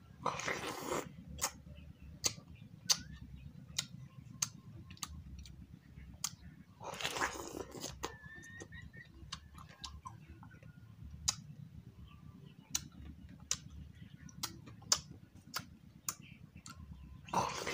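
Close-up eating of watermelon wedges: one longer bite right at the start and another about seven seconds in, with many short clicks of chewing and mouth sounds between them. A low steady hum runs underneath.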